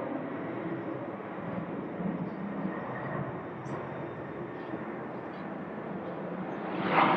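Jet airliner engine noise at an airport: a steady rumble that grows suddenly louder near the end.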